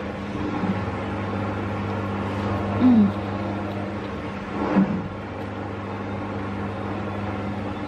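Steady low appliance hum, such as a fan, under close eating sounds. A short falling hummed "mm" comes about three seconds in, and another brief mouth sound comes just before five seconds.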